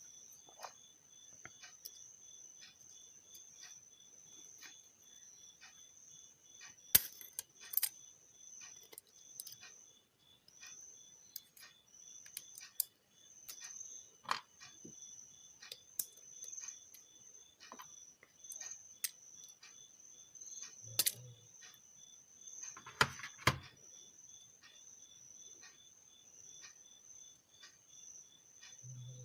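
Insects chirping in a steady, high, evenly pulsing trill. Scattered small clicks and taps sound over it, with a few sharper knocks.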